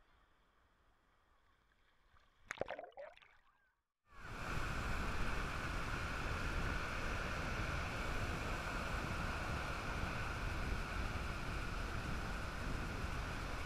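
Steady sea-shore noise of surf with wind buffeting the microphone, starting suddenly about four seconds in and running on evenly. Before it, faint lapping water and a brief splash about two and a half seconds in.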